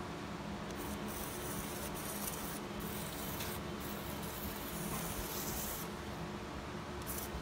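Steady hiss and low hum of operating-room equipment, broken by several brief, sharper hissing bursts.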